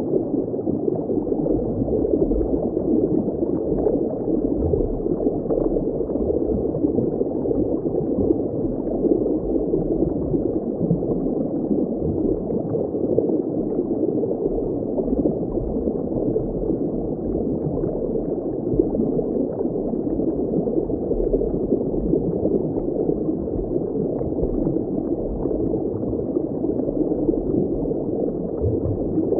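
Muffled underwater water ambience: a steady, even rush of water noise, dark and low, with no high end.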